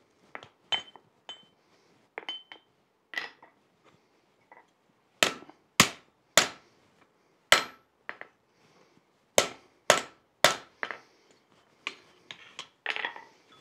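A hand hammer striking a hot 3/8-inch steel strap on the anvil face, bending it into a U shape: about a dozen irregularly spaced blows, some with a short metallic ring, the loudest in the middle stretch, with a few lighter clinks near the end.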